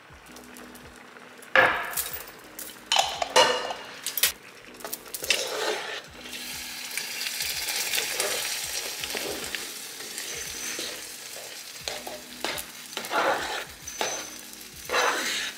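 A spoon stirring and scraping through a thick, creamy pasta sauce in a skillet, in a series of strokes, while the sauce sizzles on the heat, most steadily through the middle.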